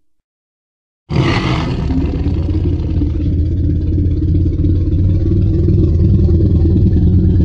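Deep, rumbling T. rex-style roar sound effect, the Jurassic Park kind, voicing the dinosaur-like creature Greymon. It starts abruptly about a second in with a harsh, bright opening, then carries on as a long, low, rough growl for about six seconds before stopping.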